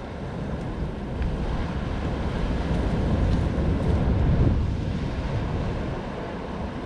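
Wind buffeting the microphone over sea surf breaking on jetty rocks: a rough low rumble that swells to its loudest about four seconds in and then eases off.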